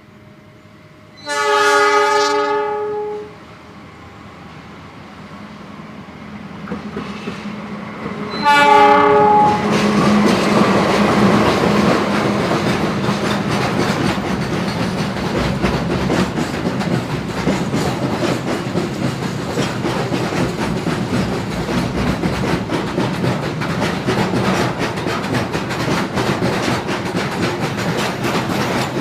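Train horn sounds one long blast of about two seconds, then a shorter blast several seconds later as the train arrives. The train then runs past with steady rumbling wheel noise and rapid clicking over the rail joints.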